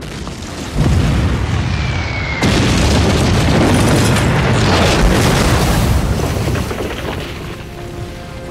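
Aerial bombs exploding: a heavy blast about a second in, then a bigger one a second and a half later with a long rumble that dies away over the last couple of seconds. A short high whistle comes just before the second blast.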